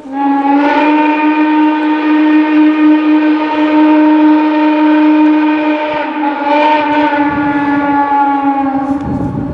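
Steam locomotive whistle blown in one long blast of about nine seconds, swelling once more about two-thirds of the way through, with a low rumble coming up under it near the end.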